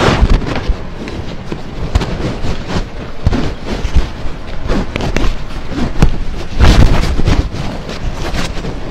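Irregular knocks and thumps of a puppy and groomers moving at a grooming table, with a loud cluster of thumps about two-thirds of the way in as the puppy rears and struggles.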